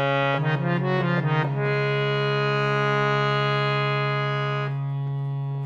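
Delhi-style harmonium with a steady low reed drone sounding throughout. Over the drone comes a quick run of notes, then a held chord that ends about three-quarters of the way through, leaving the drone alone.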